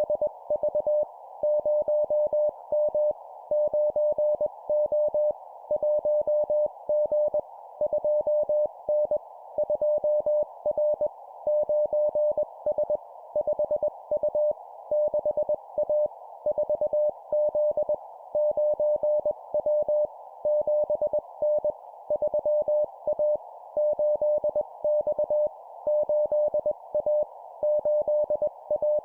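Morse code (CW) sent at 20 words per minute as a keyed tone of about 600 Hz, in short groups of two letters or numbers separated by brief pauses, over a steady band of hiss.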